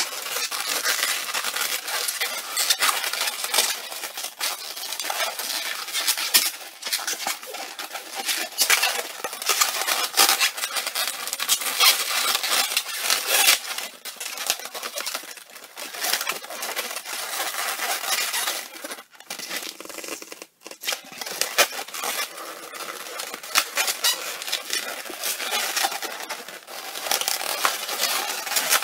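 Red and blue latex 260Q modelling balloons squeaking and rubbing against each other as they are twisted and fitted together by hand. There is a brief lull about twenty seconds in.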